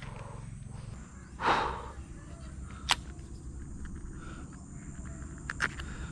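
Steady high insect buzz over a low rumble. A sudden noisy burst about a second and a half in is the loudest sound, and two sharp clicks follow, one near the middle and one near the end.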